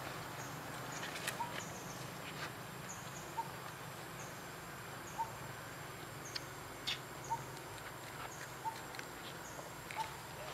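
Forest ambience: a steady background hiss with a short, high, falling chirp from a small creature repeating about once a second. About seven sharp clicks stand out as the loudest sounds.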